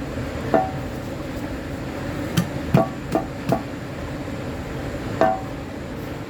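About six sharp metal clanks and taps at uneven intervals, several with a brief metallic ring, as exhaust parts and tools knock together during fitting, over a steady low background hum.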